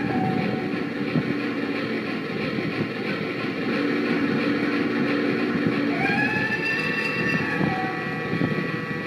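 Toy train running along its track with a steady rattling rumble. A rising pitched tone joins about six seconds in.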